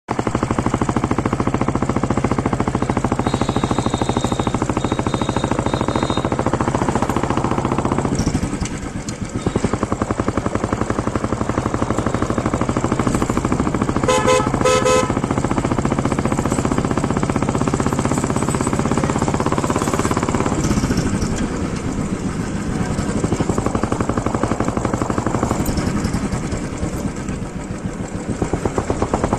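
Royal Enfield Bullet 350's single-cylinder engine and exhaust running loud as the bike is ridden, with the throttle eased off twice: about eight seconds in and again near the end. A horn gives a few short toots about halfway through.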